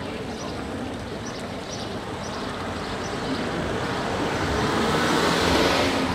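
Street traffic noise as a vehicle passes close by, unseen, swelling to its loudest about five and a half seconds in, then falling away.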